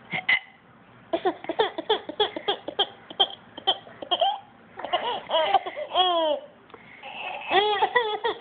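Baby laughing: a quick run of short giggles, then longer drawn-out laughs about five seconds in and again near the end.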